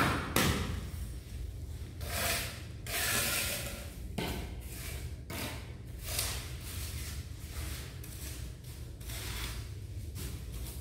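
Gloved hands scraping and spreading a sand-and-cement mortar bed on the floor beside a laid tile, in a series of irregular rough scraping strokes. A sharp knock opens the sequence.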